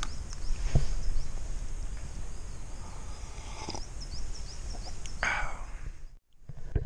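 Small birds chirping, many short high chirps repeated throughout over a steady outdoor hiss, with a soft knock about a second in and a short breathy noise about five seconds in.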